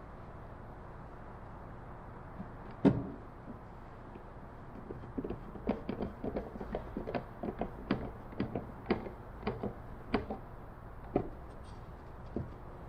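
Workbench handling noises: one loud knock, then a quick, irregular run of light clicks and knocks, two or three a second, with a couple more near the end.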